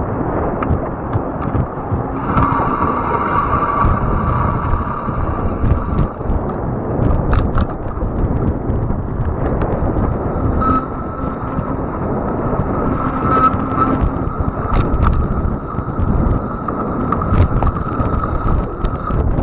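Riding a fat-tire electric bike: wind buffets the camera microphone over the rumble of the tyres. A steady high whine from the e-bike's electric motor comes in about two seconds in for a few seconds, then again from about ten seconds in, with a few sharp ticks in between.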